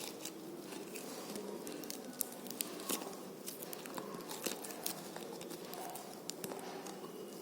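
Slime being squeezed and pressed by hand, giving irregular sharp clicks and pops.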